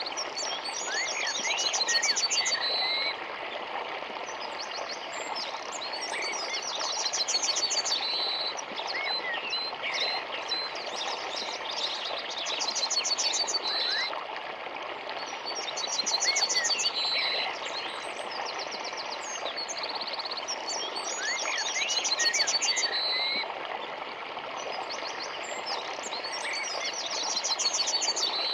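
Songbirds singing over the steady rush of a small forest river; one bird repeats a fast high trill ending on a held note about every five seconds, with scattered shorter chirps between.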